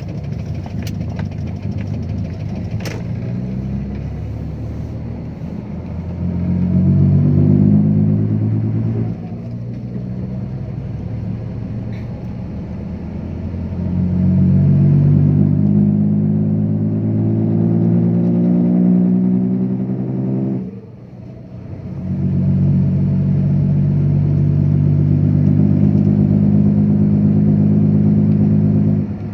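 Dump truck's diesel engine pulling and rising in pitch as it accelerates up through the gears. The engine sound drops off at each gear change, about nine seconds in and again about twenty-one seconds in.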